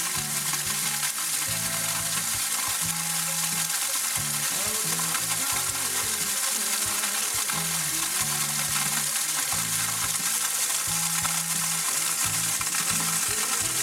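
Small waterfall falling in thin streams down a mossy rock face and splashing onto the rock below, a steady hiss.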